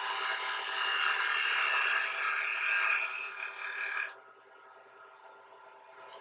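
A very small skew chisel cutting into a wooden spindle spinning on a wood lathe: a rough, rasping cutting noise with a high whine, which stops abruptly about four seconds in, leaving the lathe's steady running hum.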